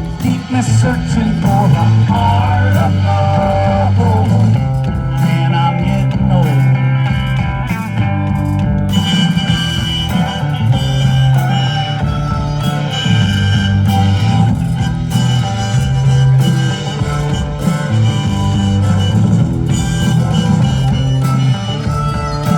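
Rock-style music with guitar over a steady bass line.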